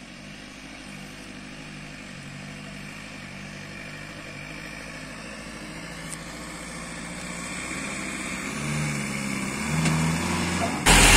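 A jeep's engine labouring up a steep dirt track, growing steadily louder as it climbs closer. Near the end a much louder sound cuts in suddenly.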